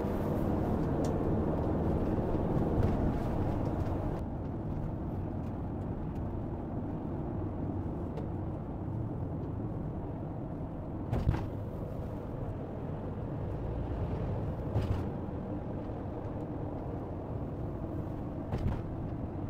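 Campervan driving at highway speed, heard inside the cab: a steady rumble of engine and road noise. The higher hiss drops about four seconds in, and there are a couple of short knocks or rattles later on.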